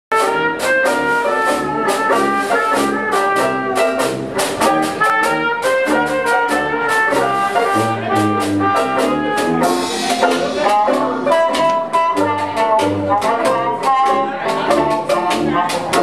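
Background music: an upbeat jazz tune with brass horns over a steady drum beat.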